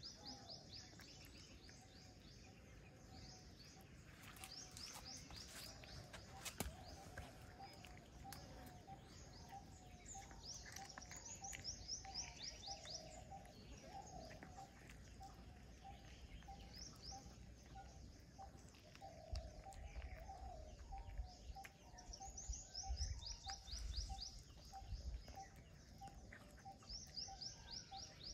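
Faint outdoor birdsong: quick, falling trills of high chirps come every few seconds, over a steady run of short, lower notes about twice a second. A few soft low thumps come in the last third.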